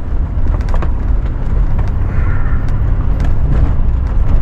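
Off-road vehicle driving slowly over a rough dirt and rock trail: a steady low rumble from the engine and tyres, with scattered small knocks and rattles.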